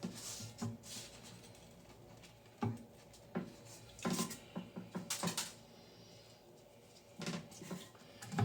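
Scattered light clinks and knocks of a toilet's metal flapper chain and hand tool being handled inside the tank, a few at a time with quiet gaps between.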